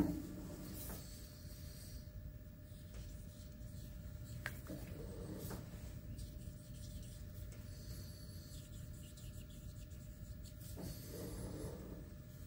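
Felt-tip marker rubbing and squeaking on the steel roller's surface as the area is inked over, a few strokes at a time, with a faint steady hum underneath.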